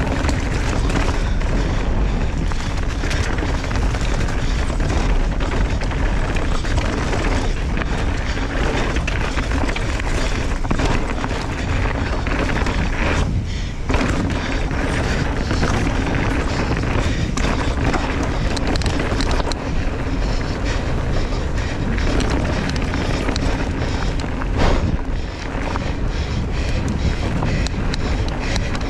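Wind rumbling on a GoPro's microphone during a fast mountain bike run, with the tyres on dirt and rock and the bike rattling over bumps in a steady stream of sharp clicks and knocks. There is one harder knock about 25 seconds in.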